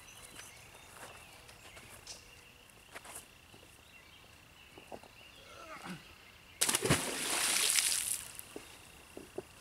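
A big carp of about 25 to 30 pounds thrown back into a canal, hitting the water with a sudden loud splash about two-thirds of the way in, followed by about a second and a half of churning water.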